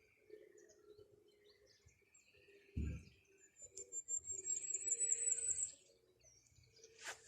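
Small birds chirping, with a high, fast trill from about three and a half to six seconds in. A short low thump comes just under three seconds in.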